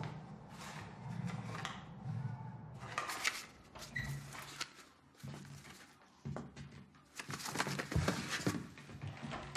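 Soft paper rustles and light handling noises as the pages of a book are turned, then several sharper knocks and thumps near the end.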